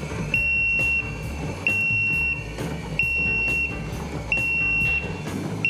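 Twin Busch four-post car lift's lowering warning buzzer beeping as the lift comes down: an even, high beep of about two-thirds of a second, repeating about every 1.3 seconds.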